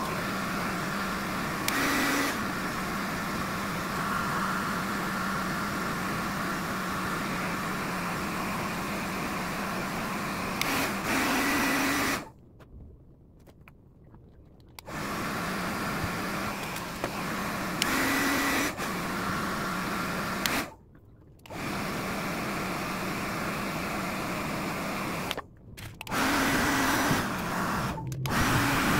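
Handheld hair dryer blowing steadily with a low motor hum, drying water-soaked drone parts. It cuts off for a couple of seconds about twelve seconds in and briefly twice more later, and it swells louder for a moment several times.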